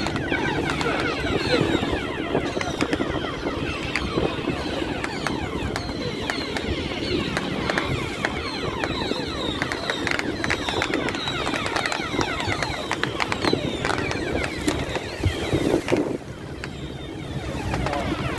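A boat's engine running under way, with wind and rushing water.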